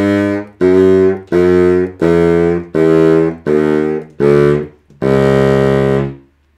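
King Zephyr baritone saxophone played as a descending chromatic scale, each note tongued separately: eight short notes stepping down in pitch, the last held a little longer. It is a play test on a freshly restored horn, checking the venting so that every half step speaks cleanly.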